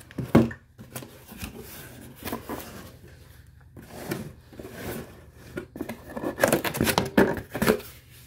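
Cardboard box and paper being handled: flaps opened and a printed leaflet pulled out, rustling and scraping irregularly, with a sharp knock about half a second in and a run of louder crackles near the end.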